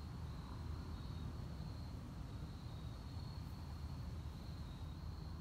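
Insects trilling steadily in one high, unbroken tone over a low steady rumble, with no club strike.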